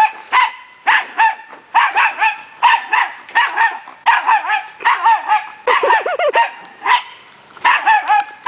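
Dachshund puppy barking in rapid, high-pitched yaps, in quick runs of two to four barks with hardly a break, a few lower barks about six seconds in. It barks while bouncing around in play.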